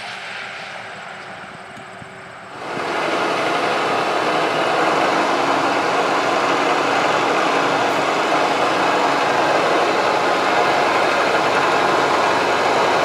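A steady engine running, jumping much louder about two and a half seconds in and then holding steady.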